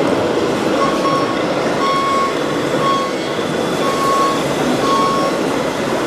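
Reversing beeper of a radio-controlled model truck, sounding five short steady beeps about once a second, starting about a second in, over steady background noise.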